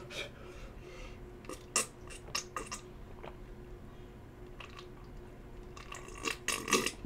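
A person drinking from a plastic cup: a few short, soft gulps and swallows, with a louder cluster of mouth and throat sounds near the end.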